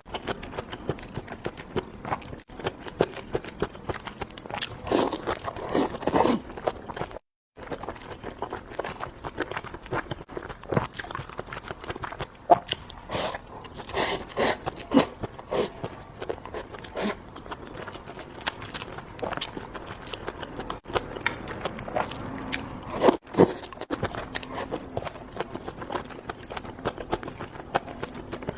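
A person chewing and crunching food close to the microphone: irregular wet crunches, bites and mouth clicks. The sound drops out briefly about seven seconds in.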